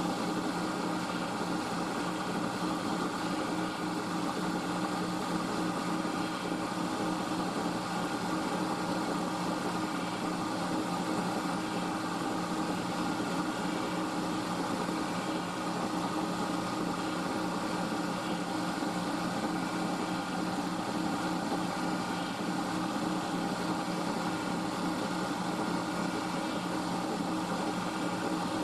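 Milling machine running, its 6 mm high-speed-steel end mill cutting a slot through thin-walled steel box section: a steady, unbroken machine hum.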